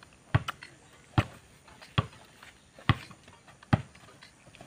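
A basketball dribbled on a packed-dirt court: sharp bounces a little under a second apart, about seven in all.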